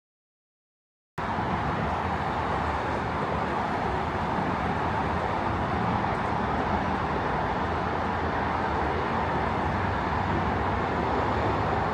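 Steady road traffic noise, a continuous rush with a low rumble, beginning about a second in after a moment of dead silence.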